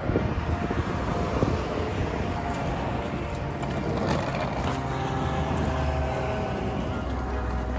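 Hard suitcase wheels rolling over a concrete path: a steady, uneven rumble.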